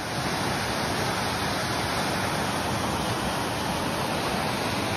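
Mountain stream rushing steadily over rocks in whitewater.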